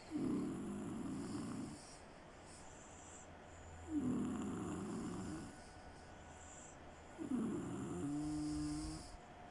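Snoring: three long, rasping snores at an even pace, about one every three and a half seconds, with quiet breathing between. The last one ends in a short steady tone.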